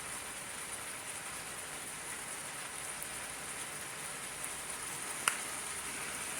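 Chicken sizzling as it sears in a multi-cooker pot on the sauté setting, a steady frying hiss, with a single sharp click about five seconds in.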